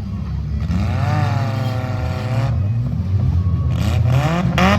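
Compact derby cars' engines running and revving hard under a steady low drone, with a high whine that rises and holds about a second in and sharper rising whines near the end.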